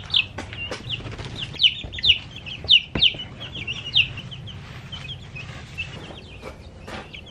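Young chickens peeping: a quick run of short, high chirps that each slide downward in pitch, several a second, thinning out and growing fainter after about four seconds.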